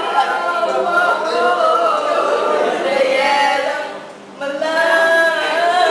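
A small group of women and a man singing together a cappella from song sheets, with held notes and a short breath break about four seconds in.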